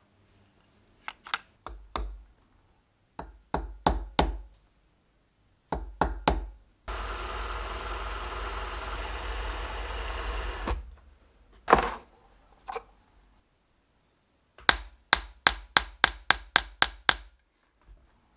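Light hammer taps on a steel punch against a small metal part, in a few short clusters, then a quick run of about ten taps near the end, roughly four a second. In the middle a small electric mini lathe runs steadily for about four seconds while the part is polished.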